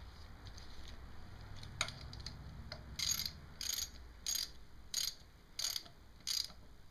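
Hand ratchet wrench clicking in six short strokes, about one every two-thirds of a second, tightening the cap on the back of an automatic cam chain tensioner; a single sharp click comes a second or so before the strokes begin.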